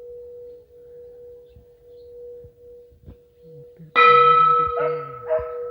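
Bell ringing on with a long steady hum, then struck again loudly about four seconds in, the new stroke bringing in bright higher overtones that ring on.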